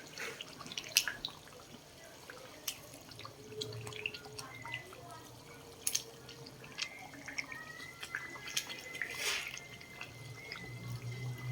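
Chili garlic oil cooking in a pan: scattered pops and clicks over a faint hiss.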